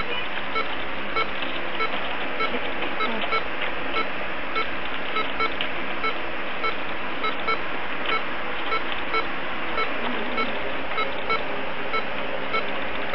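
Short electronic beeps repeating evenly, about one and a half a second, over a steady hiss.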